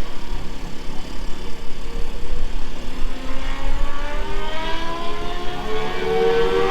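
Sport motorcycle engine accelerating, its pitch climbing steadily from about halfway through, over a constant low rumble.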